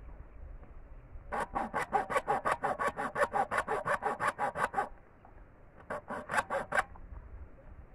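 Hacksaw cutting through a bamboo pole with quick, even back-and-forth rasping strokes, several a second. A run of about three and a half seconds stops, and after a second's pause a shorter run of strokes follows.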